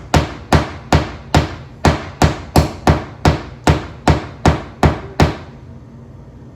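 Steady pounding on a wall, about fourteen blows at two to three a second, stopping about five seconds in. It is a signal knock for someone on the other side to locate the spot where a wire is to be brought up the wall.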